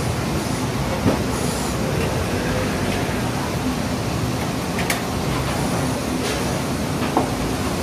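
Chicken deep-frying in a large fryer of hot oil, a steady sizzle under the hum of the exhaust hood. Metal tongs click sharply against the fryer four times as the pieces are turned.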